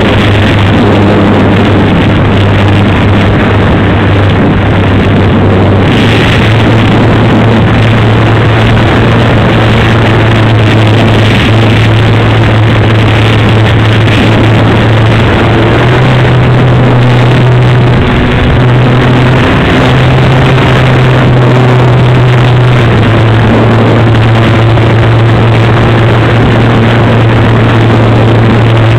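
Electric motor and propeller of a Dynam Super Cub RC model plane in flight, heard from on board: a steady low drone over a loud rush of air. The pitch steps up for several seconds past the middle of the flight and then drops back, following the throttle.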